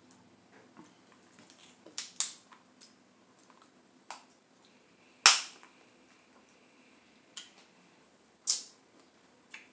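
Crab leg shells snapped and cracked apart by hand: a series of sharp cracks, the loudest about five seconds in, with softer clicks of shell between them.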